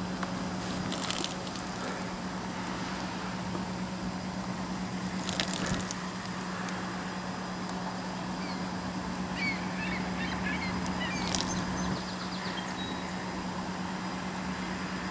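Outdoor ambience: a steady hiss with a constant low hum, a few light knocks, and a brief burst of bird chirps a little past the middle.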